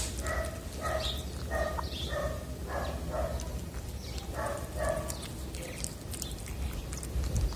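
Tabby cat chewing canned wet cat food close to the microphone: wet chewing sounds about three a second, in runs with a short pause in the middle and a longer one near the end, over a steady low rumble.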